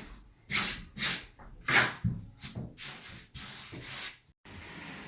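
Trowel scraping through wet concrete mortar in a series of short scraping strokes, roughly two a second, which break off abruptly a little over four seconds in, leaving only a faint background.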